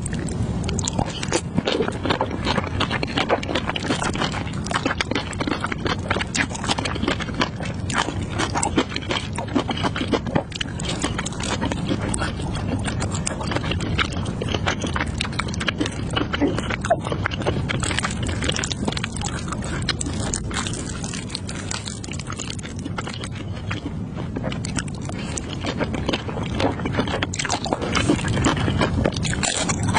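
Close-miked chewing of a mouthful of spicy instant noodles: a dense, continuous run of wet mouth clicks and smacks.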